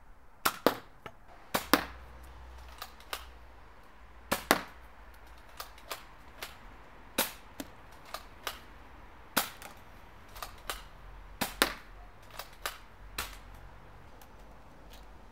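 Nerf Elite 2.0 Commander RD-6 foam-dart blaster being test-fired: a string of sharp plastic clacks, irregularly spaced and often in quick pairs, loudest in the first few seconds.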